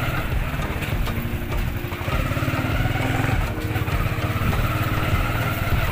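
Motorbike engine running steadily, with a low, pulsing drone.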